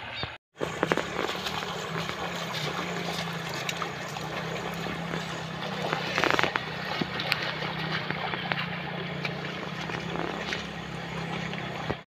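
Motorcycle engine running steadily while it rides through shallow floodwater, with water splashing; a louder splash about six seconds in.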